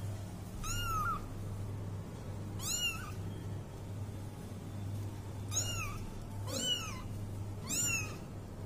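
Young tabby-and-white kitten meowing: five short, high-pitched meows, each rising then falling in pitch, a second or two apart, over a steady low hum.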